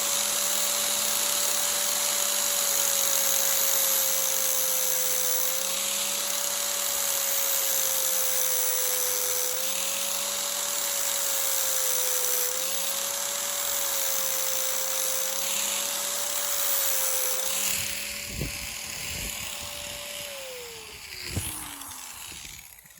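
Small high-speed rotary tool whining as it grinds down blades of a disc sander's cooling fan to rebalance a fan with a cracked blade; its pitch sags briefly about five times as it bites into the blades. It winds down near the end, with a few knocks.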